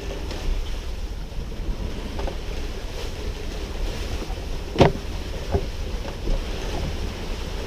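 Wind rumbling on the microphone and water noise aboard a sailboat under way. A sharp knock sounds a little under five seconds in, followed by two fainter knocks.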